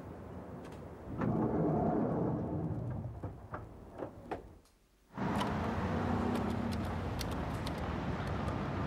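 Lift running: a swell of mechanical noise about a second in that fades away, with a few small clicks. After a sudden near-silent break, steady road-traffic noise follows, with light clicks and knocks over it.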